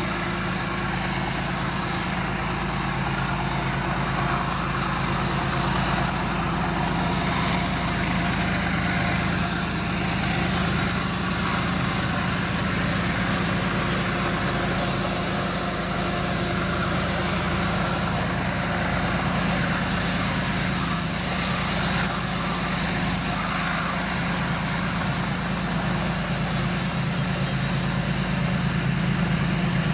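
Diesel freight locomotive approaching with its engine running, a steady low drone that grows a little louder near the end.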